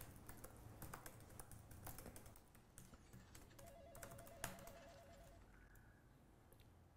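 Soft typing on a laptop keyboard: irregular faint key clicks that stop about five seconds in.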